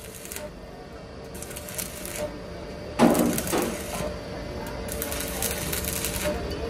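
Arc welding on a steel truck wheel rim: the stick-welding arc crackles and sputters steadily. A sudden, louder sound comes about three seconds in and dies away within about half a second.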